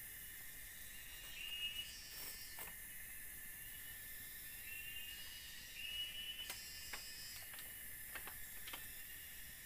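Steady high-pitched buzz of forest insects, with a few light knocks and taps from handling the bamboo frame of a platform shelter, about seven in all, scattered through the middle and latter part.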